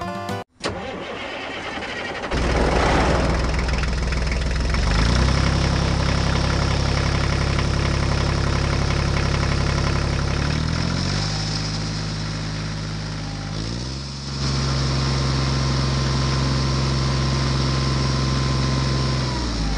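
Diesel tractor engine starting about two seconds in, then running steadily with a low, even note that shifts in pitch a few times.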